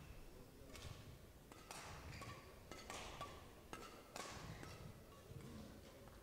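Badminton rackets striking a shuttlecock in a rally, several faint sharp hits a second or so apart.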